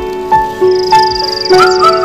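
Background music: a melody of held notes that change every half second or so, with a fast, high trill running through the second half.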